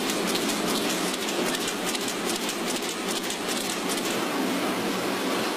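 Banknote printing-works machinery running: a steady, noisy mechanical rush with fine, rapid clicking that stops about four seconds in, leaving a smoother hiss.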